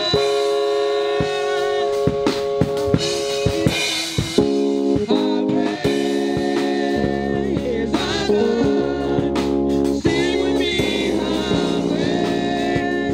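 Live singing by several voices over microphones, backed by a drum kit and sustained chords. A low bass part comes in about halfway.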